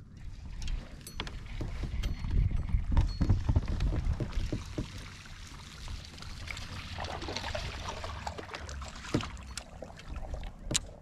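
Low wind rumble and water around a fishing kayak, with scattered sharp clicks from the rod and reel. About seven seconds in, a hooked fish splashes at the surface for a couple of seconds.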